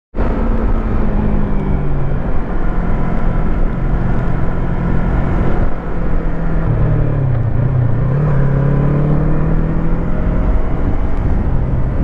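Yamaha MT-25's 250 cc parallel-twin engine running while the bike is ridden, a steady engine hum whose pitch dips briefly about seven seconds in and then climbs back.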